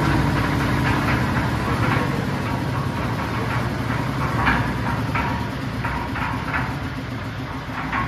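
Cement concrete mixer machine's engine running steadily, a low hum with irregular clattering over it.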